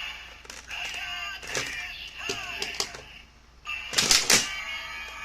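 Kamen Rider Kuuga Ridewatch toy playing its electronic finisher sound effects: gliding synthesized tones broken by sharp button clicks, with a short, loud, noisy burst about four seconds in.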